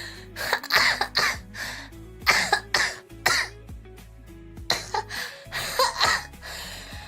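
A young woman coughing repeatedly, about a dozen harsh coughs in quick clusters, over background music.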